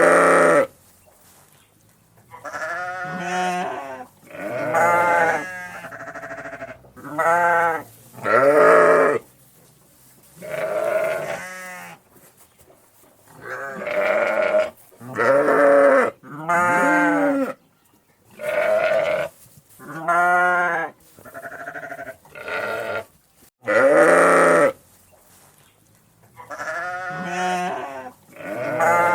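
A flock of sheep bleating: a long series of separate bleats, each half a second to a second long, with short pauses between.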